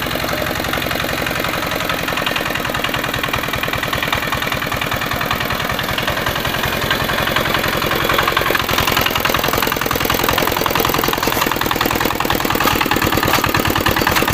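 A two-wheel hand tractor's single-cylinder diesel engine running with a steady, rapid firing beat, a little louder from about halfway through. It is driving on cage wheels through a heap of wet concrete, mixing it.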